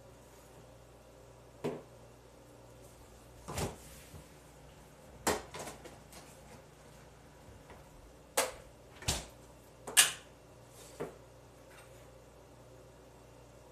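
Kitchen handling noises during meal preparation: about seven separate knocks and clunks of containers, utensils and cupboard or appliance doors, the loudest about ten seconds in, over a faint steady low hum.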